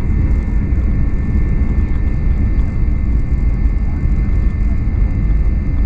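Boeing 737-800's CFM56 jet engines running steadily as the airliner taxis, heard from inside the cabin: a dense low rumble with a thin, steady high whine over it.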